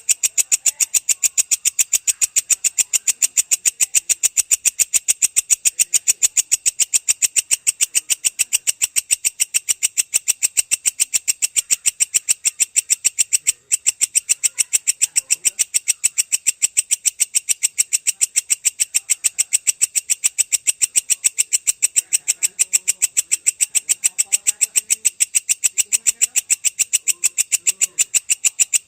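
Belalang kecek grasshopper calling in a long, unbroken series of rapid, evenly spaced high-pitched chirps, with one brief break about halfway through.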